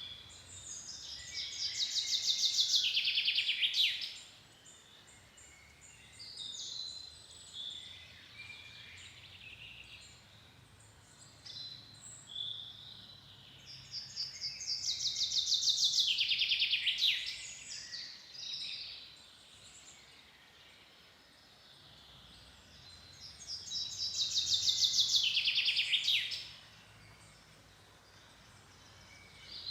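Songbird singing in a forest, three loud song phrases about ten seconds apart, each a fast trill that falls in pitch and stops abruptly, with fainter calls from other birds in between.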